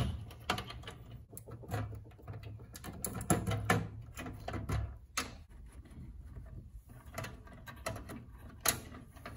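Plastic wiring-harness connectors being pulled off a pinball machine's CPU board: a run of irregular clicks and knocks, the loudest at the very start, then a screwdriver working at the board near the end.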